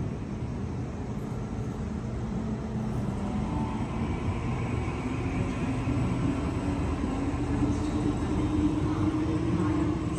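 Sydney Trains double-deck electric train pulling out of the platform, its traction motor whine slowly rising in pitch and getting louder as it picks up speed.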